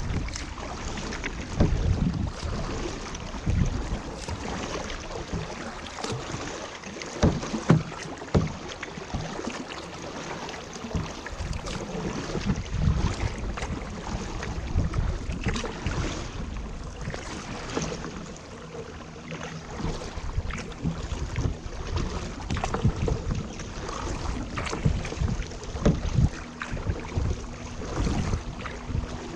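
Kayak paddle splashing and water dripping, with wind buffeting the microphone. A low steady engine drone from an approaching motorboat comes in about two-thirds of the way through.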